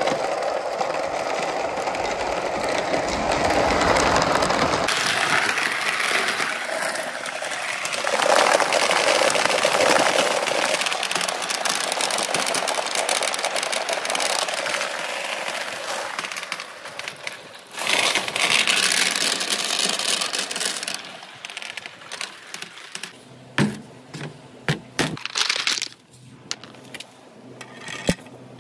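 Marbles and billiard balls rolling fast through bamboo tubes of a marble run, a continuous rolling rumble that changes abruptly twice. Then, from about three-quarters of the way in, separate sharp clicks and knocks of balls striking the track.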